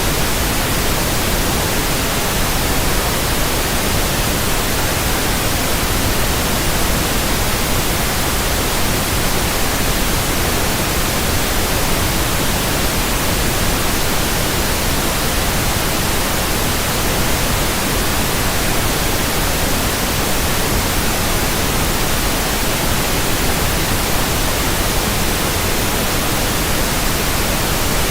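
Steady static hiss, an even rushing noise across the whole range, unchanging throughout.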